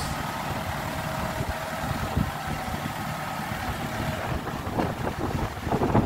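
Caterpillar 416D backhoe loader's diesel engine running steadily at low revs as the machine moves slowly past along the sand, close by. Gusts of wind on the microphone build near the end.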